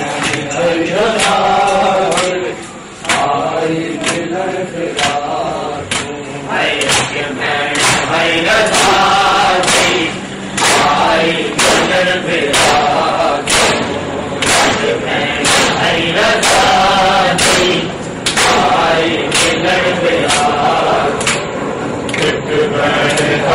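Men chanting a noha lament together while beating their chests in matam: sharp hand-on-chest slaps land at a steady pace, about once a second, under the chanting.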